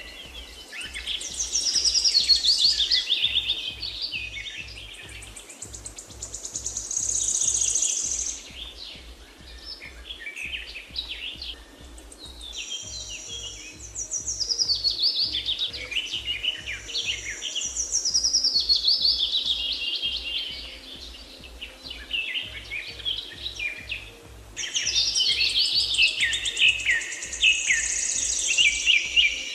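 Bird song: several long phrases of rapid chirping and trilling notes that swoop up and down, coming and going in bursts of a few seconds each, over a low, regular pulsing beat.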